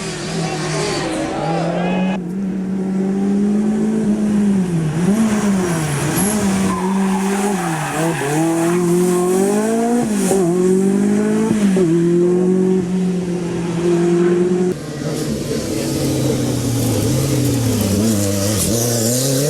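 Rally car engine revving hard through the gears, its pitch climbing and dropping again and again as the driver accelerates, shifts and lifts. The sound changes abruptly about two seconds in and again near fifteen seconds, as one car's run gives way to another.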